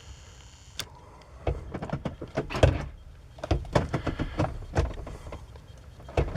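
Repeated clicks and clunks of a 2007 Chevy Avalanche's gear shifter and transmission linkage being run through the gears several times, testing the newly replaced shifter lever arm with the shift cable snapped back on.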